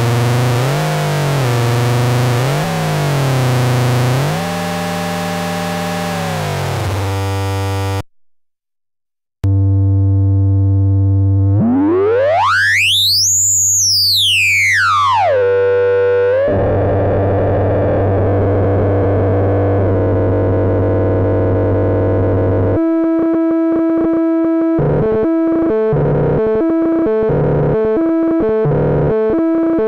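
Analog synthesizer tones from a Schlappi Engineering Angle Grinder eurorack module. A tone wobbles up and down in pitch, then cuts out briefly. A low drone follows with a sweep rising to a high whistle and falling back, the module's VCO working as a filter. Then comes a buzzy noise, and near the end a quick sequence of stepped notes driven by a pitched CV.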